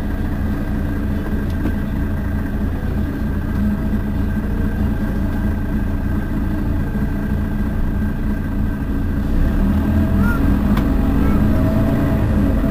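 Mercedes-Benz Citaro city bus's diesel engine idling steadily, with a faint steady high whine over the low hum. It grows a little louder about nine seconds in.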